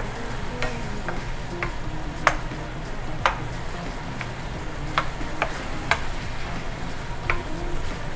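Banana slices in a rum caramel sauce sizzling in a stainless steel skillet while a wooden spoon stirs them, with about nine sharp taps of the spoon against the pan.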